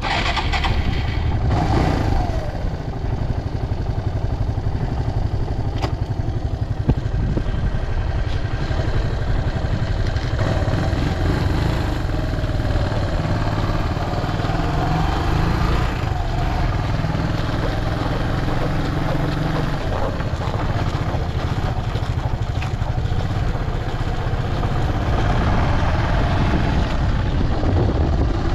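Suzuki Djebel 125 (SF44A) air-cooled single-cylinder four-stroke engine running steadily, its note rising and falling a few times as the revs change, with no abnormal noise to be heard according to the seller.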